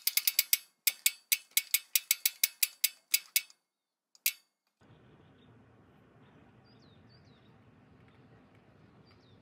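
A run of sharp, ratchet-like mechanical clicks, about four a second, for some three and a half seconds, then one more single click. After that comes a faint outdoor background with a few short bird chirps.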